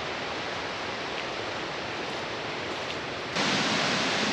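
Steady rushing of falling water, an even hiss with no distinct events, which jumps louder about three seconds in.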